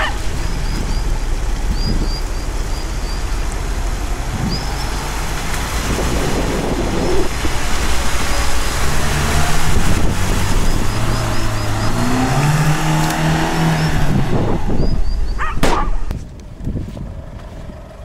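Lada Niva 4x4 driving through shallow water and up a muddy bank: its engine works under load over dense wheel, water and wind noise, and the engine note rises as it pulls harder about halfway through. The noise drops away sharply near the end.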